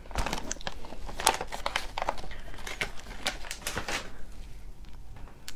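Plastic bag crinkling and rustling as it is handled, a dense run of small crackles for about four seconds that then thins out.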